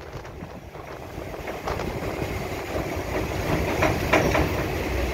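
Inside a moving suburban passenger train carriage: the steady rumble of the train running on the rails, growing a little louder after a second or two, with a few faint clicks from the track.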